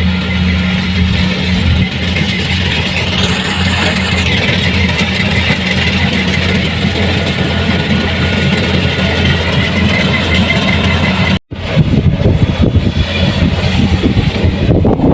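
Kubota combine harvester running steadily under load, a low engine drone with a fast mechanical chatter above it. It cuts out for an instant about three-quarters of the way through, then carries on rougher and more uneven.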